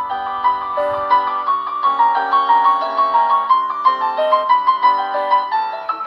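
Background piano music: a steady stream of quick notes.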